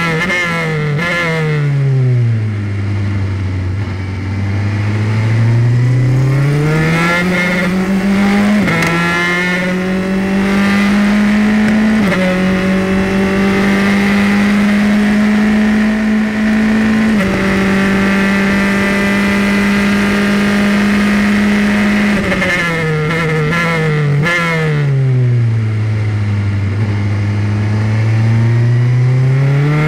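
Onboard sound of a Formula 3 single-seater's engine at racing speed. Its pitch steps down through quick downshifts under braking, climbs as the car accelerates out of the corner, and holds high and steady on the straight with brief dips at each upshift. About 22 seconds in it steps down again into a slow second-gear corner, then starts climbing near the end.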